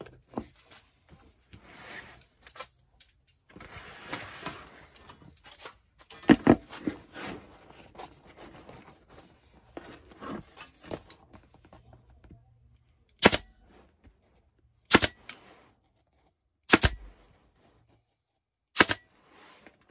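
Pneumatic staple gun firing four sharp shots about two seconds apart, driving staples through the seat cover into the seat pan. Before the shots there is quieter handling noise as the cover and tool are positioned.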